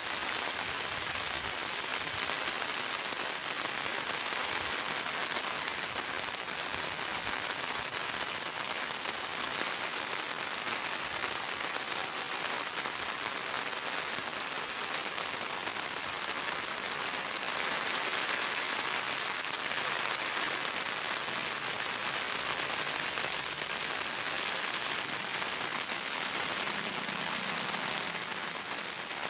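Steady monsoon rain falling on wet ground and standing water, an even hiss that runs without a break.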